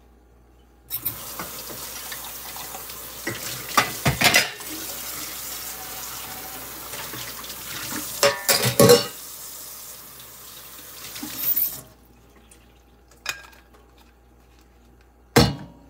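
Kitchen tap running into a stainless-steel sink as a mug and a pan are rinsed, with a few clatters of dishware. The water shuts off about three-quarters of the way through, followed by a couple of short knocks.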